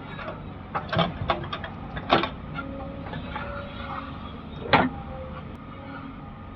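Heavy diesel earthmoving machinery running steadily, with a string of sharp metallic clanks and knocks, the loudest about two seconds in and just before five seconds.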